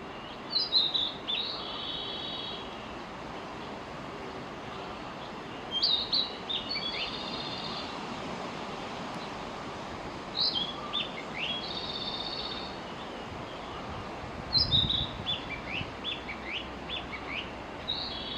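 Narcissus flycatcher singing: five short phrases, each a few quick down-slurred whistles and a rolling trilled note, repeated about every four to five seconds over a steady background hiss.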